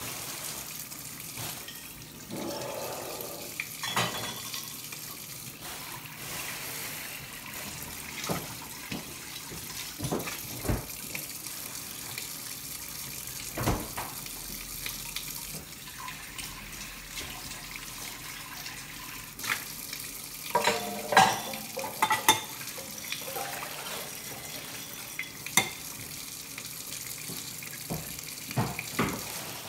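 Kitchen tap running steadily into a sink while dishes are washed by hand, with scattered clinks and knocks of plates and a bowl, bunched together about two-thirds of the way through.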